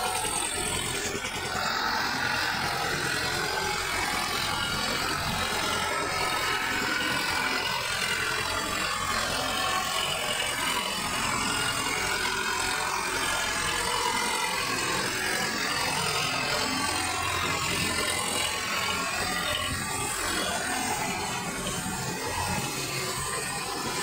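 Sonalika DI 55 RX tractor's diesel engine running steadily under load as it pulls a rotavator through a flooded, muddy field.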